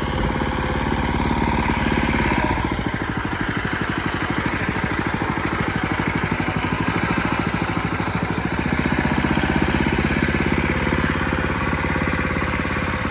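Small single-cylinder petrol engine of a walk-behind garden tiller running steadily while the machine is walked across grass, with a fast, even pulsing exhaust note. It swells slightly a couple of times.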